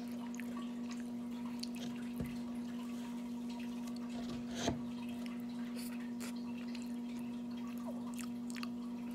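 A steady low hum under faint, scattered small clicks from a metal spoon scooping soft ice cream out of a paper pint container while it is eaten. A sharper tap comes about four and a half seconds in.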